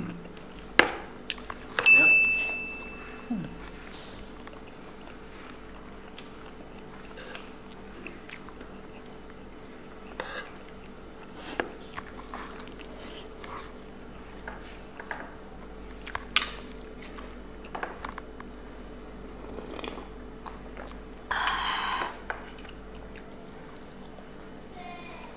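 A steady, high insect chorus keeps up in the background. Over it come the scattered clicks and clinks of spoons and forks on plates and bowls, with one ringing clink about two seconds in, and the sounds of people eating.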